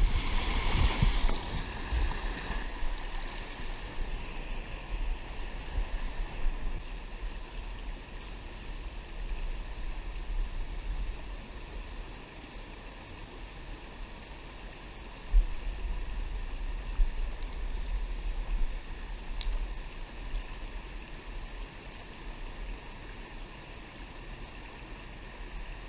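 Rushing white water of a river waterfall and its rapids, a steady hiss, louder in the first couple of seconds where the falls are close. A low rumble on the microphone runs under it, with one bump about fifteen seconds in.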